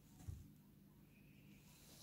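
Near silence: room tone with a faint low hum, and one soft low thud about a quarter second in.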